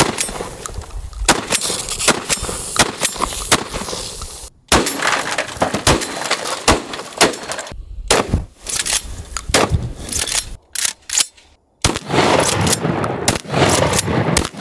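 Franchi SPAS-12 12-gauge shotgun firing quick strings of shots, several a second, each with an echo. The clips are joined by abrupt cuts with short gaps.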